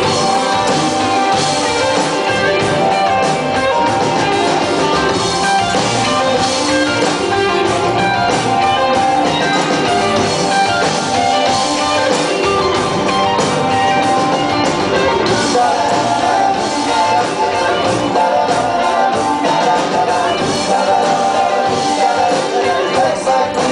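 Live rock band playing electric guitars, bass and drums, with singing, at a steady loud level.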